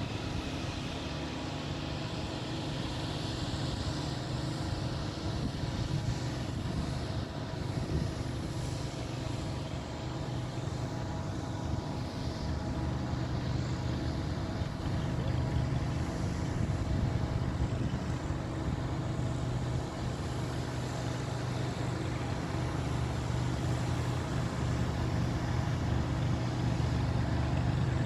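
An engine running steadily: an even, low drone with faint higher hum tones, a little louder in the second half.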